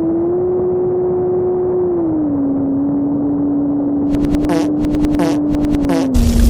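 Electric motors and propellers of a twin-motor RC plane humming steadily, the pitch stepping up and down a few times with throttle changes. Several short crackles come in about two thirds of the way through.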